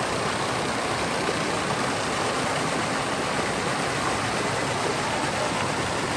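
Stream water rushing steadily over a low weir of river rocks, an even, unbroken rush.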